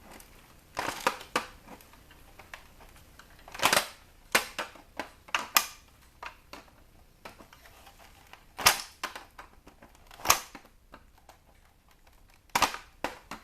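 Sharp plastic clicks and knocks, a few seconds apart at irregular spacing, from prying at the front control knob of a CD changer to pop it off the panel.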